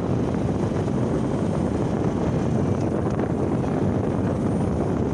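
Motorcycle riding along a road: a steady low rumble of engine, tyres and wind.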